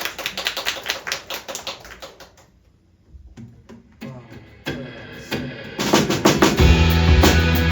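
Audience clapping that dies away after about two seconds. After a short lull, the band starts its last song: guitar notes come in about four seconds in, and the full band with bass and drums joins loudly near the end.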